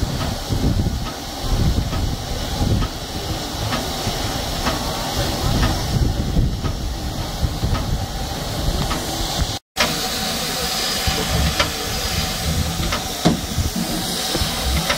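Steam hissing steadily from a standing steam locomotive, with irregular low rumbling under it; the sound cuts out for an instant about ten seconds in.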